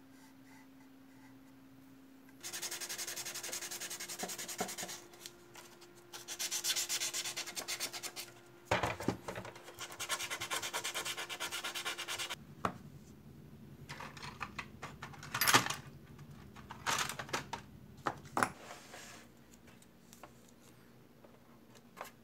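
Higher-grit sandpaper and a sanding sponge rubbed quickly back and forth over the plastic of a 1/32 scale model aircraft, in bursts of rapid rasping strokes. After about 12 seconds the sanding turns lighter and scratchier, with a few sharp taps.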